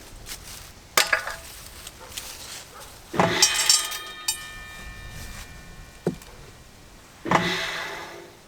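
Metal clanks and knocks while a table saw blade and the grinder's parts are handled and fitted, four sharp strikes in all; the one about three seconds in leaves the blade ringing with several clear tones that die away over about three seconds.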